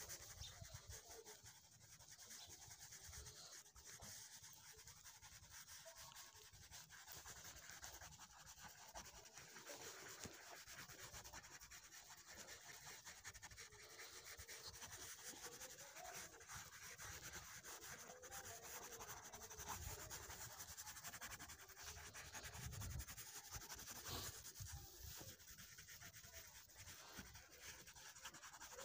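Faint scratchy rubbing of a coloured pencil shading quickly back and forth on paper.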